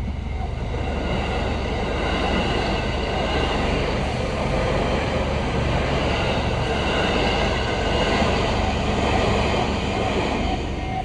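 A train passing over a level crossing, its wheels running loudly on the rails. The crossing's warning bell rings about twice a second, buried under the train noise and heard plainly again near the end as the train noise drops.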